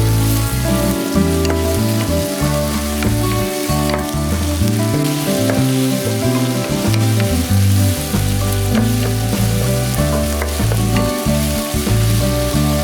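Satsuma-age fish cakes, onion and red pickled ginger sizzling in hot oil in a pan while being stirred, under background music with a low, shifting bass line.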